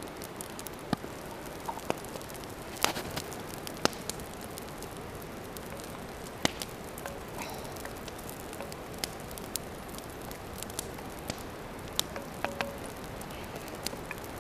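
Wood campfire crackling under a hanging cast iron pot: a steady hiss with scattered sharp pops, a few of them loud.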